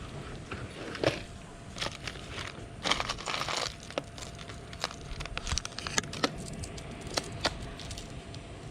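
Crinkling and rustling, with sharp clicks and clinks scattered through, from a lot of costume jewelry being handled and sorted.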